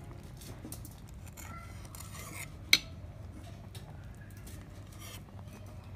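A metal ladle clinking and scraping in a metal pot of boiling broth, with one sharp clink of ladle on pot near the middle, over a low steady rumble.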